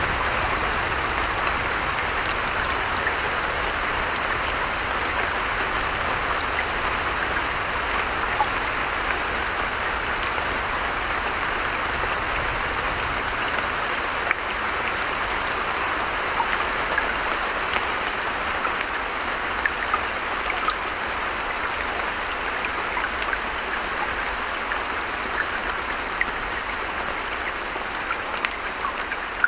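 Steady rain falling, with scattered sharper drop ticks over an even hiss.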